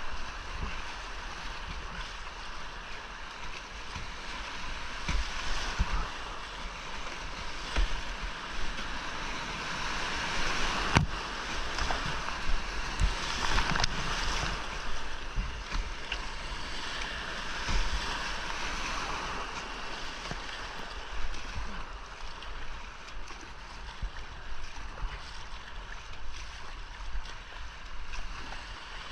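Whitewater of a rocky creek rushing steadily around a kayak as it runs rapids, swelling and easing, with irregular low thumps and one sharp knock about eleven seconds in.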